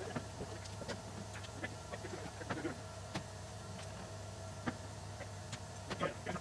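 Scattered light knocks and clicks of someone stepping into a loaded steel shipping container and handling the equipment stacked on a crate, over a steady hum.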